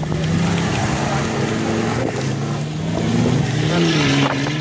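Off-road 4x4 engine running hard under load, its pitch rising and falling as the throttle is worked.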